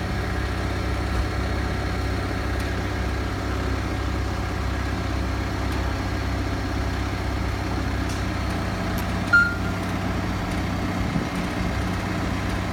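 Lorry's diesel engine running steadily with its PTO engaged, driving the hydraulic pump of a Fassi F50 loader crane as it works. A short high squeak comes about nine seconds in.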